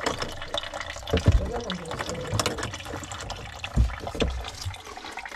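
Water running and trickling from a disconnected mixer-tap supply hose into a mug, with a couple of dull knocks from handling the fittings. The water keeps coming because the shut-off valve is not holding.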